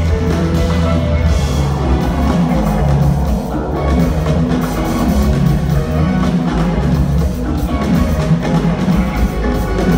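Live nu-jazz band playing electronic jazz on drum kit, electric guitar and keyboards.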